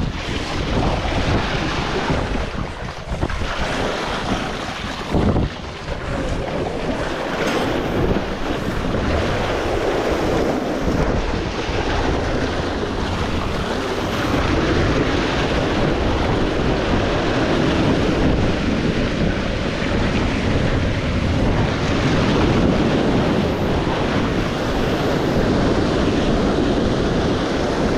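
Sea waves surging and breaking at the shore, with wind buffeting the microphone.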